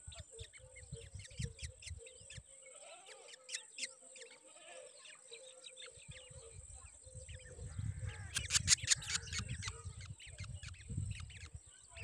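Drongo nestlings begging for food in the nest: rapid short, high chirps, busiest and loudest about eight to nine and a half seconds in.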